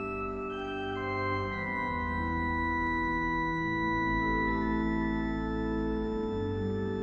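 Church pipe organ playing slow, sustained chords over a deep held bass, moving to a new chord every second or two.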